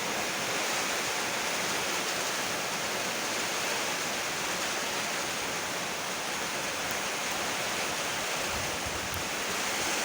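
Steady heavy rainfall, an even dense hiss without distinct drops or breaks.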